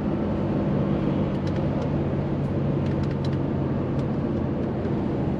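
DAF XF truck's diesel engine and road noise heard from inside the cab, a steady drone while driving on the motorway, with a few faint ticks between about one and four seconds in.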